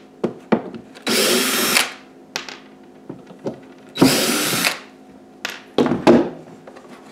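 Cordless drill-driver spinning in two short bursts, about a second in and about four seconds in, backing Phillips screws out of a plastic console subwoofer enclosure. Light clicks and knocks of handling come between the bursts, with a small clatter near the end.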